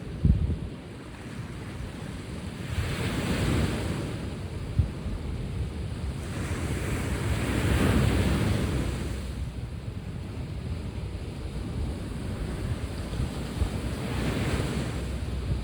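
Sea waves breaking and washing in, swelling three times (the longest about seven to eight seconds in), with wind rumbling on the microphone and a brief low thump right at the start.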